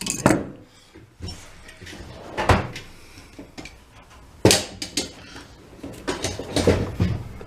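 Hammer blows on a makeshift punch, driving the trigger roll pin out of the Ingersoll Rand impact wrench's metal housing. About four sharp metallic strikes roughly two seconds apart, with lighter knocks between.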